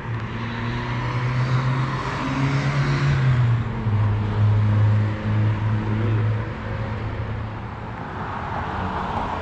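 Motor vehicle engine running with road-traffic noise; its low hum drops in pitch about three and a half seconds in and shifts again a few seconds later.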